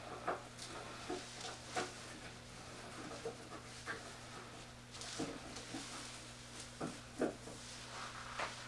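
Faint clicks and taps of metal and plastic parts as the crank handle is fitted to a drill press table bracket by hand, with breathing and a low steady hum.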